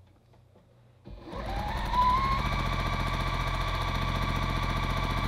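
Sewing machine starting up about a second in, its motor whine rising as it comes up to speed, then stitching a seam steadily at a fast, even pace.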